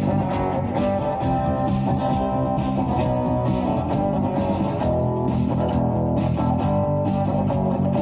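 Rock band playing an instrumental passage after the last sung line: guitars over bass guitar, with a steady drum beat.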